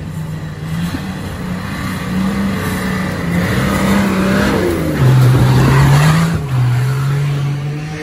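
Off-road 4x4's engine working under load, holding a steady pitch and then dropping lower and getting louder about five seconds in.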